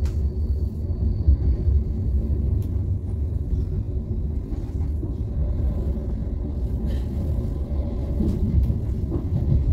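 Regional express train running along the track, heard from inside the passenger cabin: a steady low rumble.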